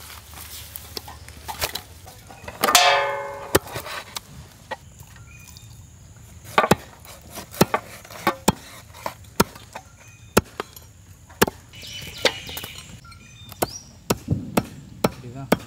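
Heavy knife chopping skinned baby shark into pieces on a wooden log chopping block: sharp, irregular chops about one a second. A short, loud call sounds about three seconds in.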